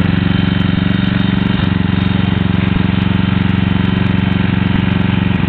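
An engine running steadily at a constant speed, its drone even and unchanging.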